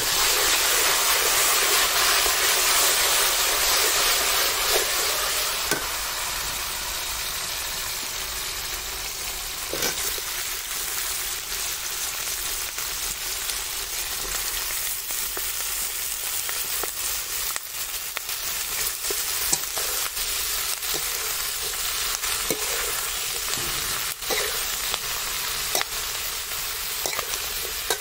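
Stir-fry in a steel wok: oil sizzling around minced garlic and chilli, loudest in the first few seconds, then a steadier, lower sizzle as cauliflower and greens are tossed. A metal spatula scrapes and clacks against the wok now and then.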